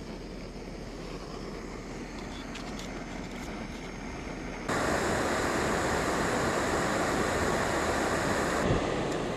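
Jetboil canister gas stove burning under its cup of water, a steady hiss. Fairly quiet with a few light clicks at first, it becomes much louder and closer from about halfway through.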